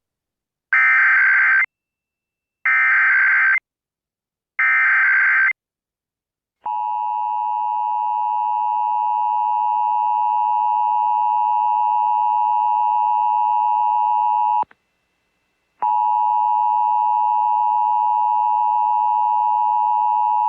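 Emergency Alert System tones: three one-second bursts of digital SAME header data, each followed by a short gap. Then the steady two-tone EAS attention signal, which runs about eight seconds, cuts out for about a second and starts again.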